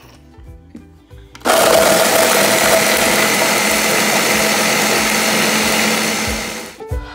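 Countertop blender with a glass jar starting up about a second and a half in and running hard for about five seconds, grinding frosted mini-wheat cereal into crumbs, then winding down near the end.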